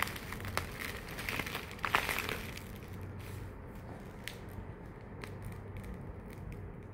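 Bouquet wrapping material crinkling and rustling as it is handled and folded, busiest in the first two seconds or so, then fading to a few faint ticks.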